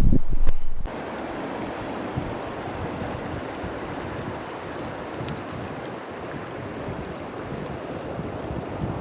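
Steady rush of river water flowing. In the first second there is a loud low wind rumble on the microphone, which cuts off abruptly.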